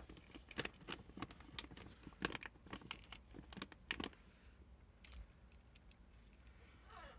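Fancy (Syrian) hamster picking dry food pellets out of a plastic bowl and stuffing them into her cheek pouches: rapid small clicks of pellets against the bowl, thinning out after about four seconds.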